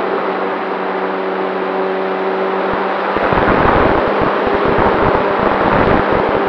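Propeller and motor of a radio-controlled scale Cessna 188 model in flight, a steady drone, heard through a camera mounted on the airframe with wind rushing over the microphone. From about three seconds in, heavier wind buffeting partly masks the drone.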